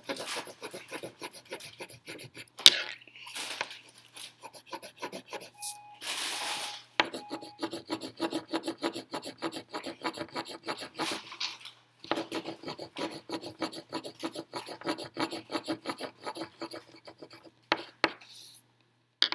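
A pencil scribbling fast back and forth on paper as a drawing is shaded in: a steady scratchy rasp of quick strokes, several a second, with a few short pauses. About three seconds in there is one sharp knock.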